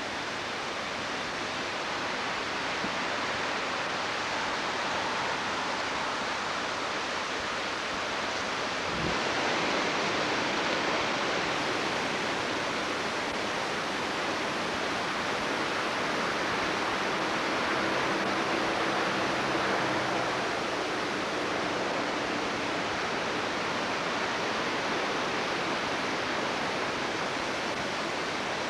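Peshastin Creek in flood: a steady rush of fast, high water, with a brief knock about nine seconds in.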